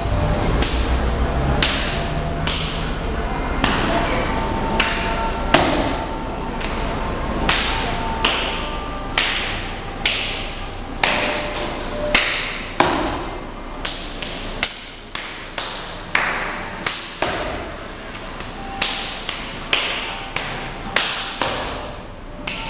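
Sharp percussive hits, about one or two a second, each ringing off briefly, over a few faint held notes: percussion-led background music.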